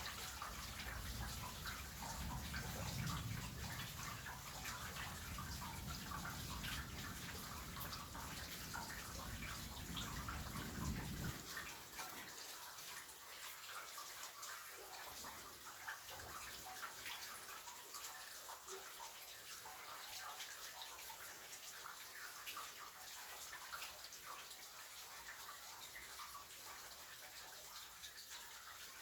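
Steady rain falling, a dense patter of individual drops. A low rumble lies under it for the first eleven seconds or so, then cuts off suddenly.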